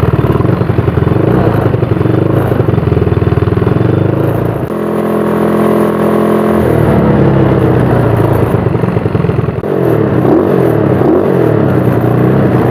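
Yamaha Mio scooter's single-cylinder four-stroke engine running. It holds a steadier, even note for about two seconds midway, and its revs rise and fall a couple of times near the end.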